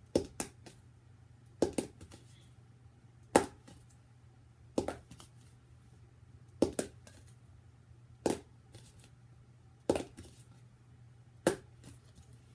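A plastic highlighter repeatedly flipped onto a hardcover book: about eight sharp clacks, one every one and a half to two seconds, most followed by a lighter tap as it tips over. The attempts are failing to stick.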